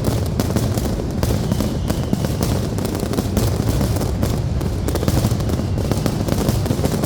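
Aerial fireworks display by Pirotecnia Zarzoso: a dense, unbroken barrage of rapid bangs and crackles over a constant low rumble.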